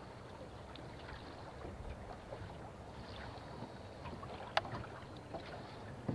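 Faint wind and water noise around a small fishing boat, with one sharp click about four and a half seconds in.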